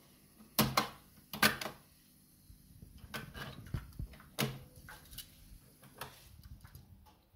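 Mechanical clicks and clunks from a Sanwa 4002 receiver-cassette deck's keys and spring-loaded cassette door, several sharp ones close together in the first two seconds, followed by lighter plastic clicks and rattles as the cassette is handled and lifted out.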